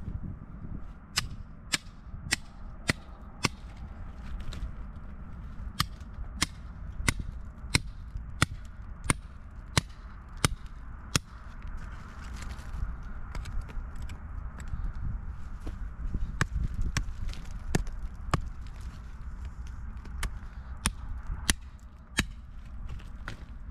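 Steel rock pick striking rock, sharp hits at about two a second in runs with short pauses, over a steady low rumble.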